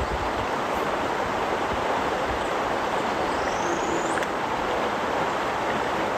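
Creek water rushing steadily, a continuous even hiss of moving water.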